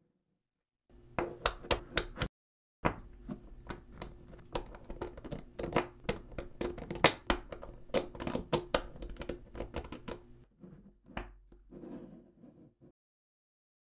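Small magnetic balls clicking and clacking as they snap together and are pressed into blocks by hand: quick, irregular runs of sharp clicks with a few louder snaps among them.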